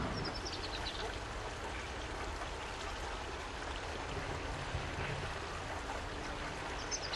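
Faint, steady outdoor background noise, with a few short high chirps near the start and again near the end.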